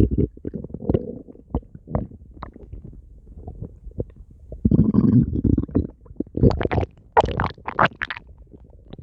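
Human stomach growling: a run of low rumbles broken by short gurgles, with louder gurgling bursts about five seconds in and again between six and a half and eight seconds.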